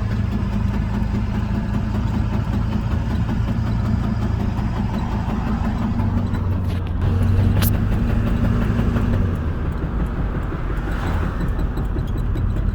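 2000 Ford F-250 under way: steady drivetrain and road hum with the clunking noise the owner is trying to capture, and a sharp click about seven and a half seconds in. He thinks it could be a U-joint or the transfer case, and hopes it is not the ring and pinion.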